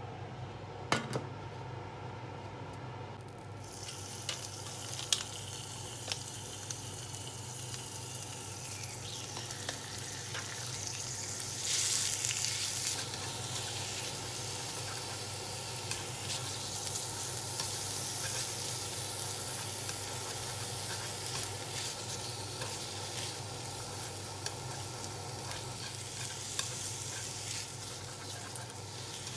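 Sliced meat sizzling in sesame oil in a Vermicular cast-iron frying pan as it is stirred with wooden chopsticks. The sizzle starts about four seconds in, swells around twelve seconds, and is dotted with small taps of the chopsticks against the pan.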